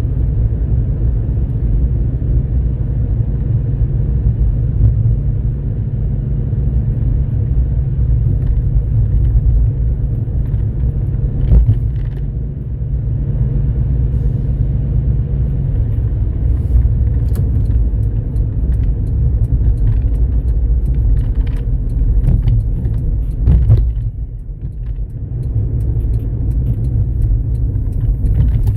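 Car running, heard from inside the cabin: a steady low rumble of engine and road noise with a few light rattles, easing off briefly near the end.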